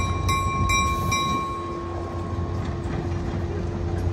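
Alco RS-1 diesel-electric switcher locomotive running as it moves a passenger train past, a steady low engine rumble with wheels clicking over rail joints in the first second or so. A steady high-pitched tone over the engine fades out about halfway through.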